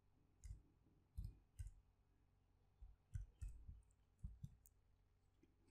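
Faint computer keyboard keystrokes: about eight separate, unevenly spaced key presses as a line of code is typed.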